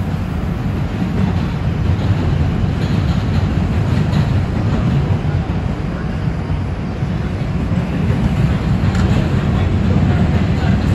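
NYC Subway R142 car running at speed, heard from inside the car: a steady low rumble of wheels on the rails.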